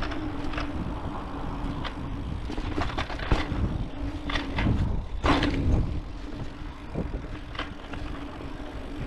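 Mountain bike rolling down a dirt trail: tyre and wind noise with many sharp knocks and rattles over bumps, and a steady low hum underneath.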